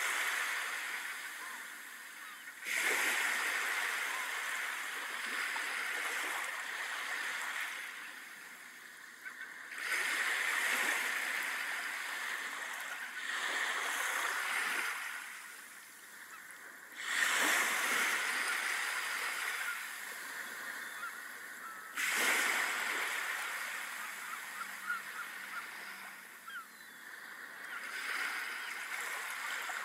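Sea surf breaking on a sandy beach: each wave comes in with a sudden rush that fades slowly as it washes up, one every five to seven seconds.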